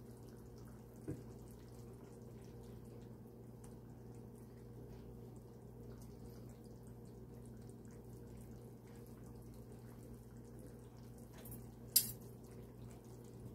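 Quiet kitchen room tone: a steady low hum, with a small tick about a second in and a metal serving spoon clinking once sharply near the end.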